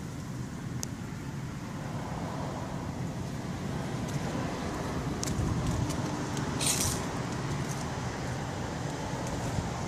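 Steady low rumble of a motor vehicle, with a few light clicks and a short rustle about two thirds of the way through.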